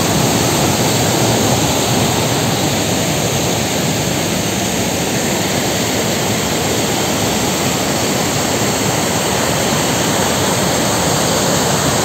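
Waterfall and rapids rushing close by: a loud, steady roar of falling white water.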